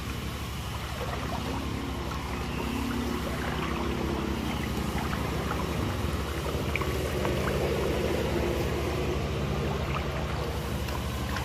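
Shallow canal water sloshing and trickling around people wading through it, over a steady low rumble.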